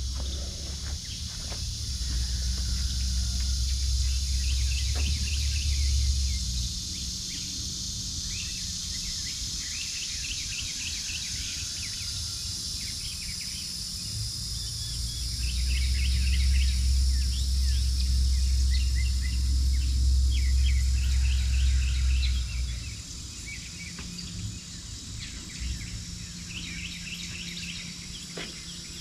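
Outdoor ambience of birds chirping over a steady insect drone. A low rumble comes in twice for several seconds each time and cuts off sharply.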